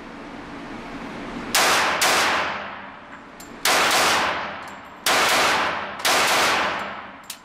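Sig P220 .45 ACP pistol fired five times in an indoor range, a quick pair and then three single shots about a second or more apart, each shot ringing out in a long reverberant tail.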